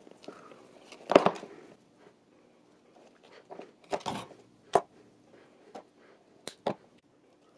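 Wire strippers and pliers cutting and pulling insulation off the thick wires of an old dryer cord. There is a loud crunching snap about a second in, then a handful of sharper single clicks.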